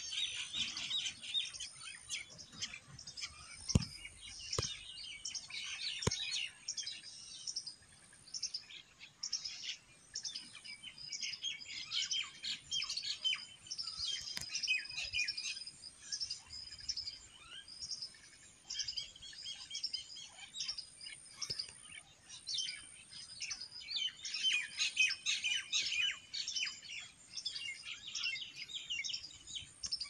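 A dense chorus of many small birds chirping and twittering without a break, busiest near the start, in the middle and again about three-quarters of the way in. A few short sharp knocks come between about four and six seconds in.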